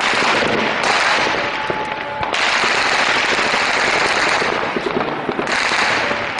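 Heavy automatic gunfire: overlapping bursts of machine-gun fire crackling almost without a break, growing denser about two seconds in.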